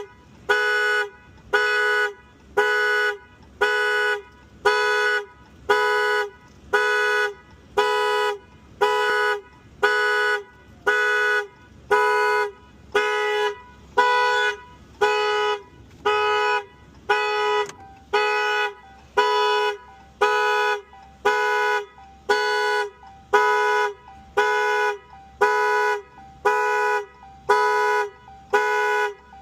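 Car horn blaring in a steady on-off pattern, about one half-second blast every second without a break: the rhythm of a vehicle's anti-theft alarm going off.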